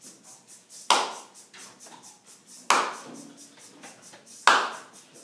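Three sharp hand claps at a slow, even beat, about one every two seconds, each followed by a short ring of room echo.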